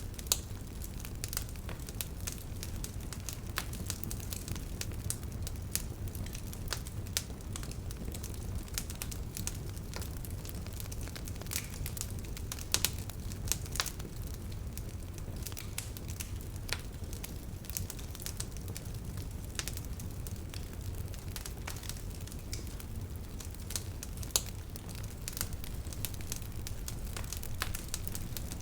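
Bonfire of burning wood crackling, with frequent irregular sharp pops over a steady low rumble of the flames.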